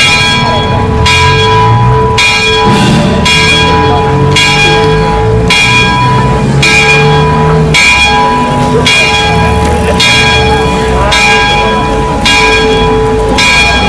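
A large church bell tolling steadily, struck about once a second, each stroke ringing on into the next.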